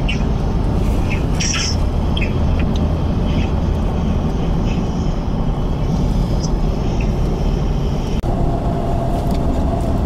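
Steady road and engine rumble inside a car driving in a hailstorm, with scattered sharp ticks of hailstones striking the car at irregular moments. About eight seconds in the sound breaks off briefly, and a steady hum joins the road noise.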